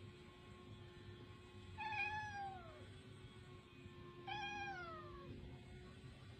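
A domestic cat meowing twice: two drawn-out meows about two and a half seconds apart, each sliding down in pitch at the end.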